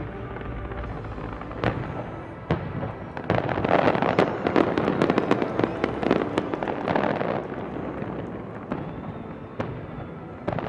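Fireworks going off in a large display. Scattered sharp bangs start about a second and a half in and build to a dense crackling barrage in the middle, which is the loudest part. The barrage thins out, and a fresh run of bangs comes near the end.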